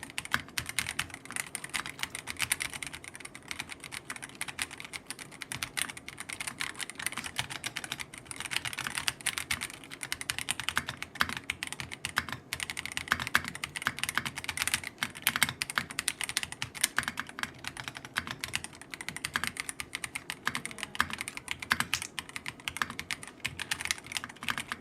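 Fast, continuous typing on a gasket-mounted 75% mechanical keyboard with Otemu brown switches: a dense stream of key clicks and clacks.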